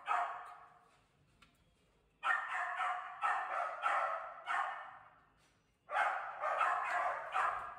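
Dog barking in two runs of quick repeated barks, the first starting about two seconds in and the second about six seconds in.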